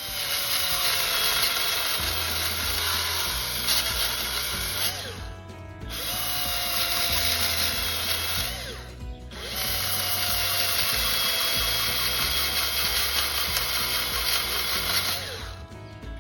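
A power tool run three times, the longest near the end. Each time its pitch sags under load and picks up again just before it stops.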